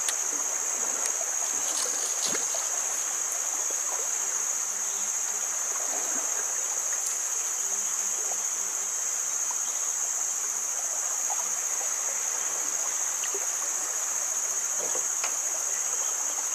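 Steady rush of a flowing river, with a continuous high-pitched insect drone from the forest over it and a few faint clicks in the first couple of seconds.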